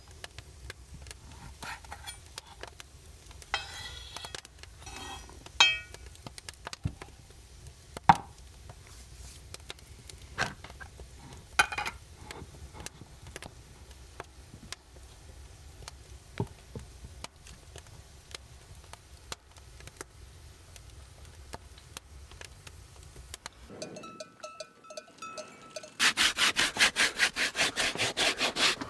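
A knife slicing dry-cured sausage on a wooden cutting board: scattered knocks of the blade on the board, with rubbing and sawing sounds between them. Near the end comes a loud, rapid, even clicking, about eight strokes a second.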